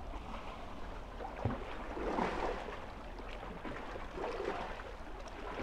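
Small sea waves lapping and splashing at the water's edge, swelling and fading every second or two, over a steady low rumble.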